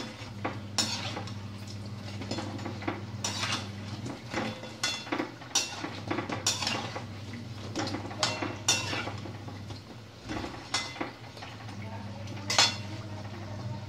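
Steel tongs and a slotted spoon clinking and scraping against a steel kadhai, with irregular sharp knocks every second or so, as browned medu vadas are turned and lifted out of the hot frying oil. A low steady hum runs underneath.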